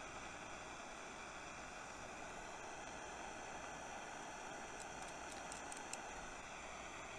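Steady hiss of a handheld gas torch's blue jet flame heating a brass eutectic-alloy overload heater, with a few faint ticks about five to six seconds in.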